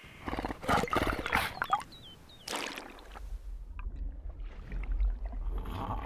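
A seal calling in loud pulsing bursts over the first two and a half seconds, then a low rumble of moving water.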